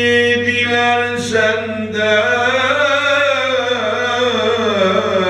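Solo male voice chanting a Turkish kaside unaccompanied, drawing one syllable out into long held notes and a slow, winding melisma. Sung into a handheld microphone.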